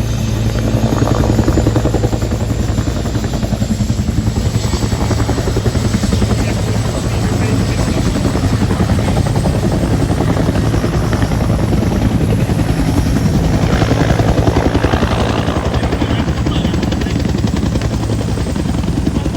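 Bell 212 helicopter running, its two-bladed main rotor beating steadily under the high whine of its twin turboshaft engines, which rises slightly in the first few seconds.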